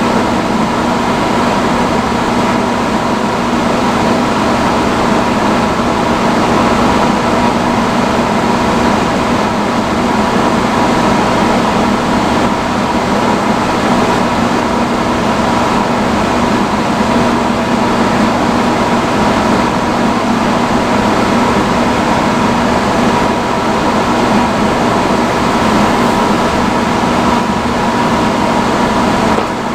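Vintage salon chair hood hair dryer running steadily on its highest setting: an even rush of blown air with a constant low hum and a higher whine.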